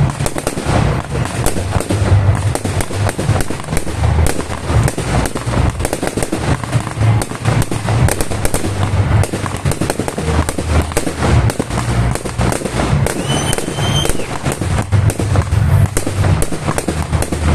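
A fireworks display going off continuously: dense crackling and popping from many shells over deep low booms, with a brief rising whistle about thirteen seconds in.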